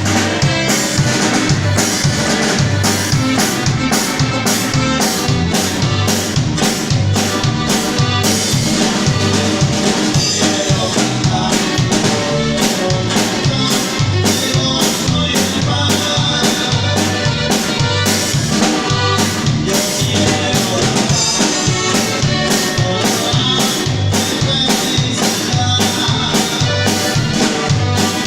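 Music with a steady, fast drum-kit beat and bass, played without singing.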